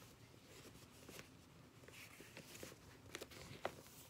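Faint paper rustling as a paperback picture book is opened and its pages handled, with a couple of small sharp clicks near the end.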